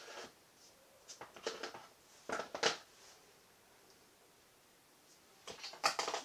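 Short rustles and light knocks from gloved hands handling plastic cups and paint containers, in three brief bursts: about a second in, around two and a half seconds in, and near the end.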